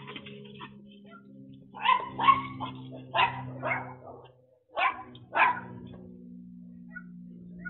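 A small dog barking, a string of short sharp barks in three bursts starting about two seconds in and stopping by about halfway, over a faint steady low hum.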